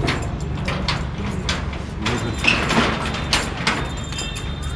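Metal clicks, knocks and rattles from a padlock being worked at the foot of a corrugated steel rolling shutter, over a steady low background rumble.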